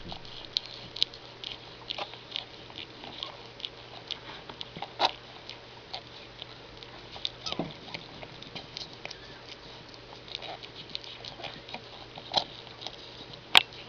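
Birthing Sphynx cat and her newborn kittens stirring in their bedding: scattered small clicks, ticks and soft rustles, with a few sharper clicks about five seconds in and near the end.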